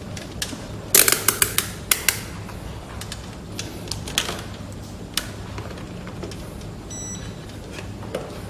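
A quick run of about seven sharp clicks and taps about a second in, then scattered lighter ticks, over a steady low hum; a brief faint beep near the end.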